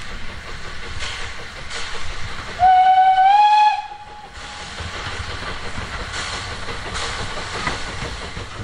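Steam locomotive standing in steam: a steady hiss with a few soft puffs, and one short whistle blast about three seconds in that slides up slightly in pitch as it opens.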